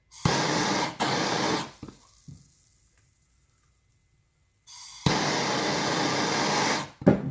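Hand-held gas torch lit and burning in two bursts of steady hiss, about a second and a half long, then about two seconds long, each cutting off sharply, as the flame is put on a brass fitting to heat it for soldering. The second burst opens with a softer hiss before jumping louder, and a few clicks follow near the end.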